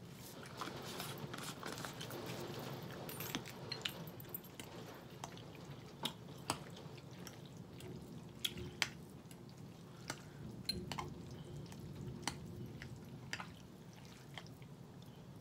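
A metal fork clinking and scraping in a glass bowl while smoked turkey wing meat is pulled apart with the fork and fingers, with soft wet handling sounds of the meat and cabbage. Short sharp clicks come at irregular intervals throughout.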